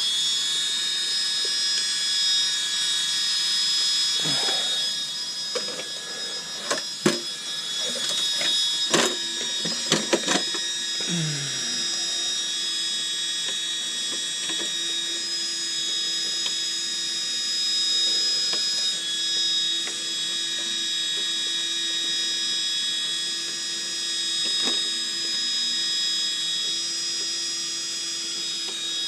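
A steady high-pitched electric whine that holds one pitch throughout, with several sharp knocks and clicks between about four and eleven seconds in.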